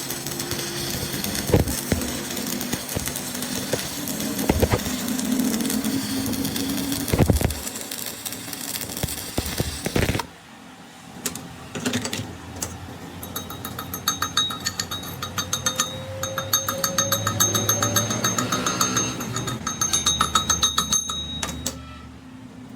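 Metalworking noise from repairing a steel gear shaft. It starts with a steady machine noise and several sharp knocks, then the sound cuts off suddenly and a fast, even mechanical rattle with a ringing whine follows.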